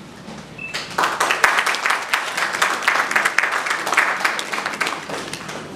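Audience applauding: dense clapping that starts about a second in and dies away near the end.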